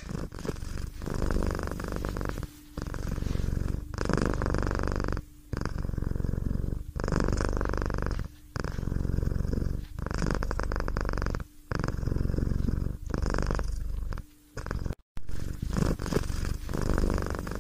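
Domestic cat purring close up, in even cycles about every one and a half seconds with a short break between each breath.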